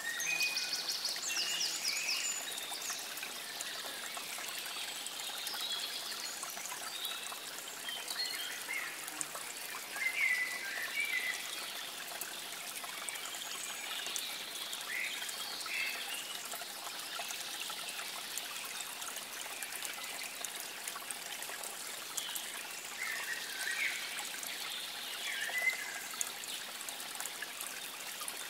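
Small birds singing and chirping over a steady trickle of running water, with a fast trill near the start.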